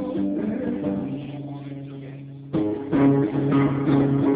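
Live guitar: sustained notes ring and fade, then a louder strummed chord comes in about two and a half seconds in and keeps ringing. The sound is dull and boxy, as from a phone recording.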